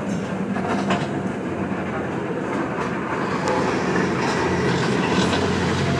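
Steady running noise of a moving vehicle heard from inside: road noise and a low engine drone, with a few light clicks.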